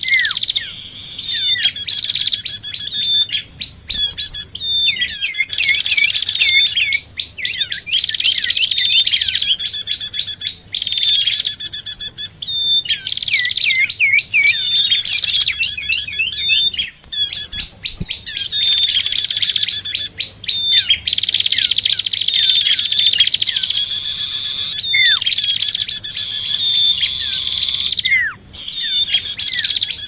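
Bird-lure recording of prinias (prenjak) chattering noisily together with common iora (cipoh) calls: dense, rapid chirping in bursts of a few seconds with short breaks, with some quick falling whistled notes. An agitated, excited chorus used to draw both kinds of bird in.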